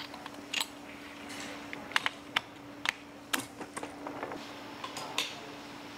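Irregular light metallic clicks and clinks as a clutch basket with its plate pack and a white plastic gear are handled and seated on the open crankcase of a 200cc loader rickshaw engine. A steady low hum runs underneath.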